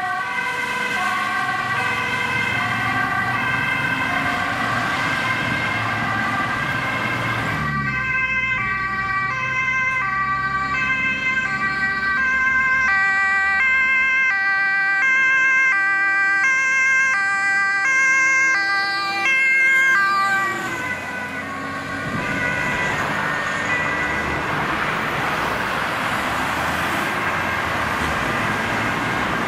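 Ambulance two-tone siren alternating between two pitches. About eight seconds in it gives way to a fire engine's two-tone siren over its engine running. The siren cuts off about twenty seconds in, leaving the steady rush of road traffic and engines.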